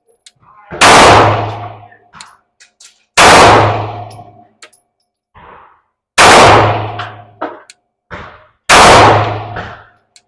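Four slow, evenly spaced shots from a 9mm Glock 19 Gen 3 pistol, about one every two and a half seconds, each loud crack ringing out and fading over about a second. Faint small clicks follow between the shots.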